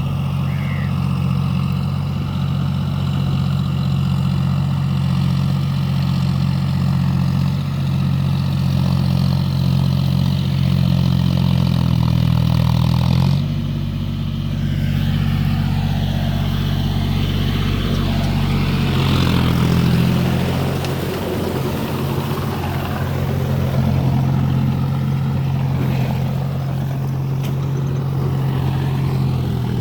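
John Deere four-wheel-drive tractor's diesel engine running steadily while ploughing in deep mud. Its note shifts lower about halfway through, and a rougher, noisier stretch follows for several seconds.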